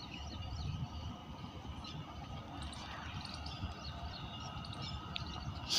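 Low, steady rumble of an express train hauled by a WAP-7 electric locomotive, still far off and approaching, with birds chirping. A short sharp click near the end.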